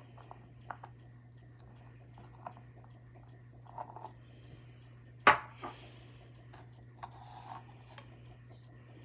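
Small objects handled by hand at close range: scattered light clicks and brief rustles, with one sharp click about five seconds in, over a steady low hum.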